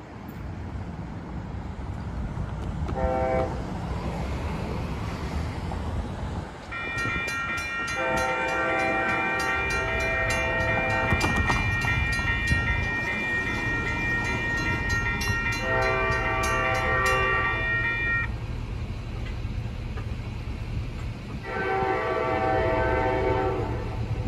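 Western-Cullen-Hayes mechanical crossing bell ringing for about ten seconds with repeated high strikes, then falling silent while the crossing is still active: the bell is dying. A locomotive horn sounds four blasts, a brief one and then three longer ones, over the low rumble of the approaching train.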